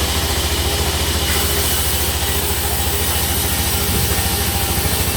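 Sawmill's engine running steadily, with an even, rapid low chugging.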